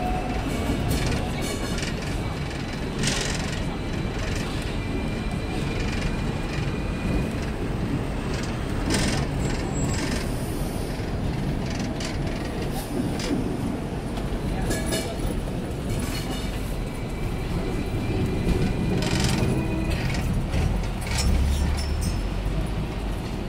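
Hong Kong double-decker tram running along its street track, heard from inside on the upper deck: a steady rumble of wheels on rail, with frequent clicks and rattles from the car body and a thin high whine now and then.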